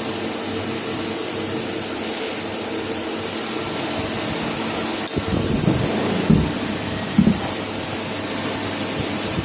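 CNC automatic machine running with a steady hum and hiss, with a few short knocks and clicks partway through as it works through its cycle.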